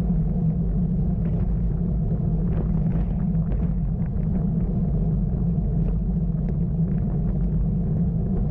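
Steady low rumble of wind and road noise on a bicycle-mounted camera's microphone while riding, with faint light ticks over it.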